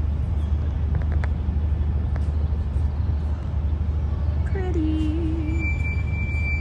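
Outdoor ambience with a steady low rumble, like distant traffic. About five seconds in a faint voice is heard, and just after it a thin steady high tone lasts for about two seconds.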